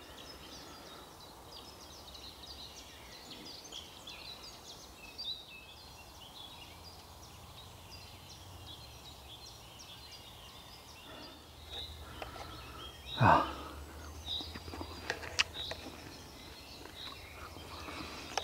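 Woodland birds chirping and singing, many short high calls throughout. About thirteen seconds in there is a short, louder sound that slides down in pitch, followed by a few sharp clicks.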